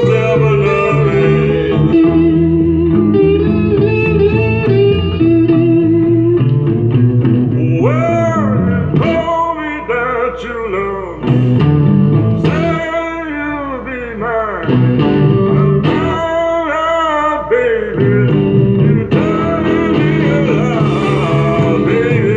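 A song with guitar and singing, played from a 45 rpm single on a 1951 RCA Victor J-2 record changer through a Fisher CA-40 tube amplifier and an Electro-Voice Baronet (SP-8B) speaker. It gets softer for a few seconds in the middle.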